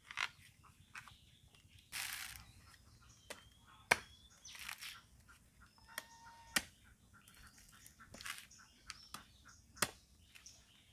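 Husk being cut and torn off a dry whole coconut with a knife: several sharp knocks as the blade strikes and levers into the shell, with short tearing, rasping noises of the fibres ripping away in between.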